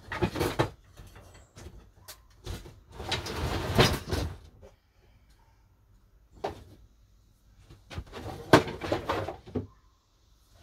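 Long wooden strips and rods being moved about, knocking and scraping against each other and the wooden shed wall in several bursts of clatter with quiet gaps between.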